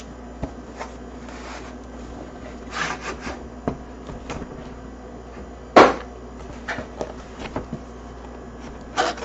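Cardboard keyboard box sliding out of its outer sleeve and being handled: rubbing and scraping of cardboard with scattered light taps, and one sharp knock about six seconds in.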